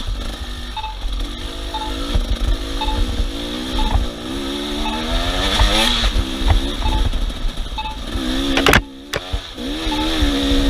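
Off-road vehicle engine revving up and down repeatedly under load, with wind rumbling on the microphone. A short high beep repeats about every 0.7 s throughout, and the sound briefly cuts out near the end.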